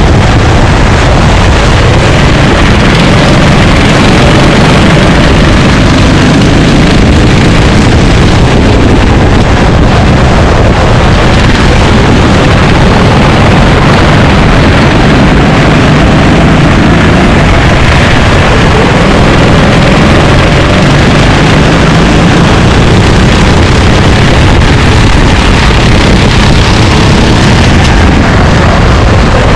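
Racing kart engines running at speed, loud and continuous, their pitch rising and falling with the revs.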